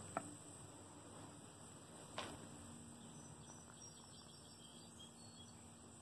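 Near silence: faint room tone with two soft clicks about two seconds apart, and a few faint high chirps around the middle.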